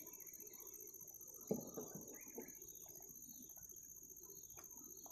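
Faint, steady, high-pitched insect chorus, with a few soft knocks and clicks from handling a gill net over the side of a wooden canoe, the loudest about a second and a half in.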